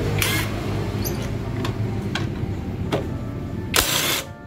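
Bull BL127 20 V cordless impact wrench hammering on a motorcycle's kick-start lever bolt to loosen it: a steady rattling drive with sharp ticks, a louder burst near the end, then it stops.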